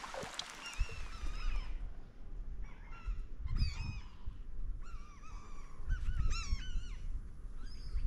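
A flock of waterbirds calling: a run of short, wavering, high-pitched calls that come in clusters, over a low rumble.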